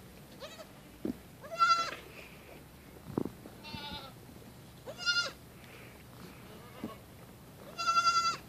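Boer goat kids bleating: about five high-pitched bleats, the loudest nearly two seconds in and near the end, with a couple of dull thumps between them.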